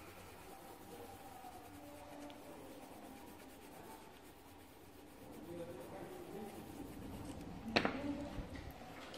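Coloured pencil scratching on paper in steady shading strokes. Near the end there is one sharp click, as a pencil is set down on the table.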